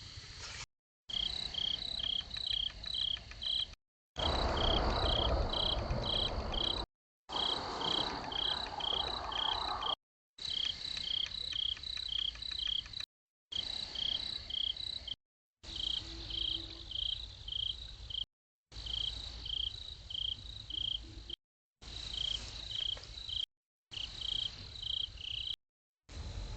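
Crickets chirping in a steady rhythm, about four chirps a second, picked up by a trail camera's microphone. The audio drops to full silence for a moment every two to three seconds where one clip ends and the next begins, and a louder low rushing noise runs under the chirps for several seconds near the start.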